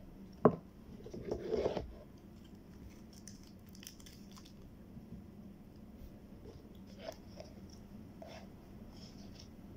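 Sounds of eating ice cream with a spoon: a sharp click of the metal spoon against the paper cup, then about half a second of eating noise from a spoonful, followed by a few faint spoon clicks.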